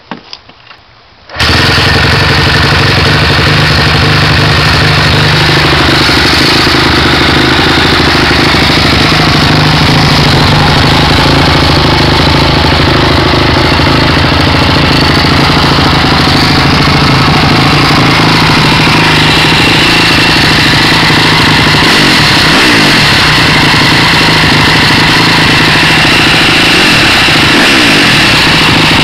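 Honda CRF250R dirt bike's single-cylinder four-stroke engine catching about a second and a half in, then running with a few blips of revs. It is recorded so loud that the sound is distorted.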